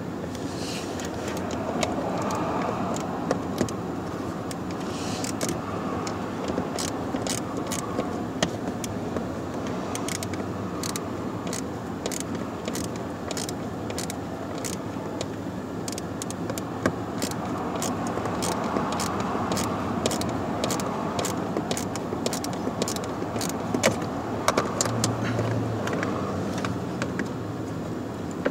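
Irregular metal clicks and taps of a ratchet on a long extension working a screw on a blend door actuator, over a steady background noise.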